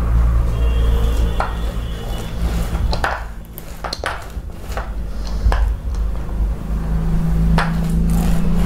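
Paint roller being worked back and forth through thick wet textured coating (Tuff Tex Eco) on a board, with scattered clicks and knocks over a steady low hum.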